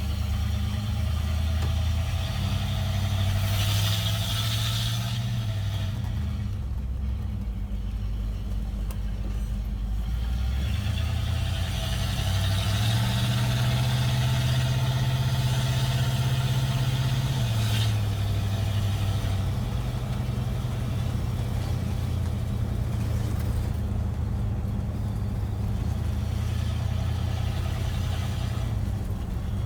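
V8 engine running through Black Widow Neighborhater mufflers, its deep exhaust note steady, stepping up in pitch about twelve seconds in and dropping back a little after halfway as the vehicle is driven.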